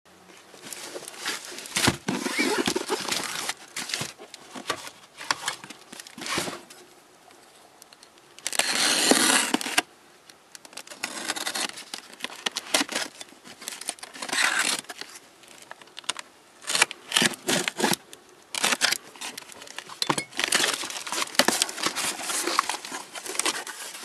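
Cardboard parcel being unboxed: packing tape slit with a craft knife and pulled away, cardboard flaps handled and brown packing paper crinkled. Irregular scraping, tearing and crinkling noises come in bursts, the longest and loudest about nine seconds in.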